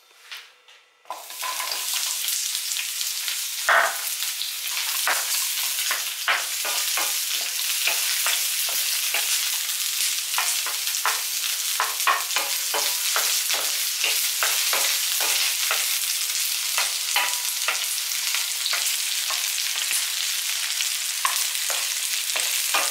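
Chopped red onion sizzling in hot oil in a non-stick frying pan, with a wooden spoon scraping and tapping the pan as the onion is stirred. The sizzle starts suddenly about a second in and then runs steadily.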